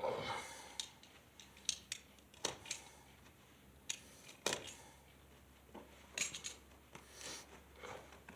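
Irregular sharp metallic clicks and clinks, about a dozen in all, as metal hardware and tools are handled while fitting concrete wedge anchors.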